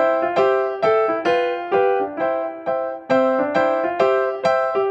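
Background music on a keyboard: a steady, evenly paced run of single notes, about two a second, each fading before the next.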